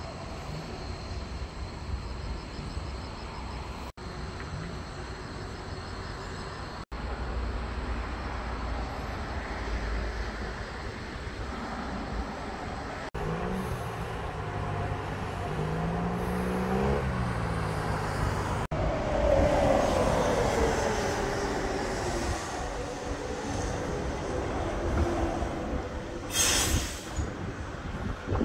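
Road traffic: vehicles on a multi-lane road, among them a bus, with engine drone and tyre noise, an engine pitch rising and falling, and a falling pitch as one vehicle goes by. A short sharp hiss comes near the end, over a low rumble of wind on the microphone, and the sound drops out abruptly several times.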